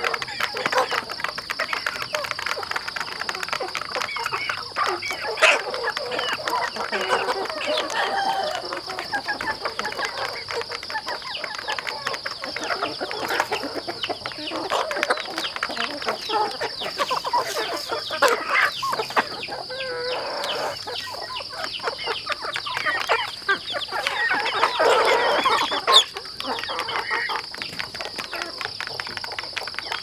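A flock of chickens clucking and calling as they feed, with many quick taps of beaks pecking at a plastic feed trough.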